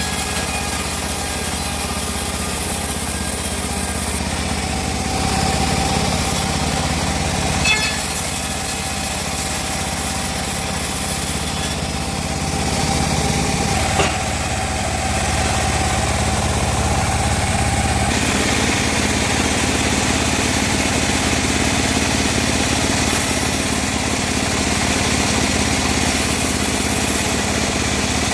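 Homemade bandsaw running steadily under a small engine's drone, as used for slicing teak. Two short knocks come about eight and fourteen seconds in, and the sound fills out about eighteen seconds in.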